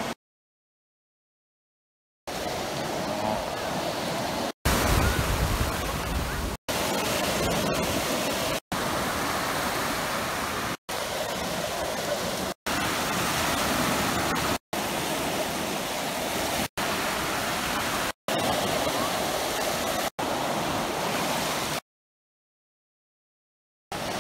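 Steady rush of sea surf on a beach, with voices in the background, in short clips cut together about every two seconds. Silent for the first two seconds and again for about two seconds near the end.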